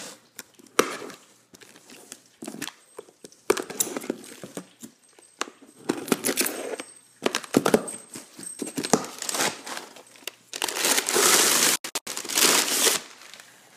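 A box cutter slitting the packing tape along the seam of a cardboard box in short scratchy strokes, with cardboard and crumpled packing paper crinkling; the longest, loudest paper crinkling comes near the end.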